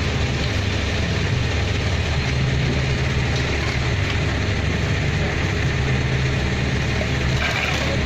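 A heavy engine running steadily at a low idle-like pitch, typical of road-works machinery.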